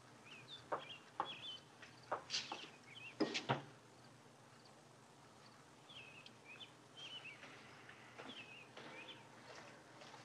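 Small birds chirping faintly, with a few light knocks from household objects being handled; the loudest knocks come about three and a half seconds in.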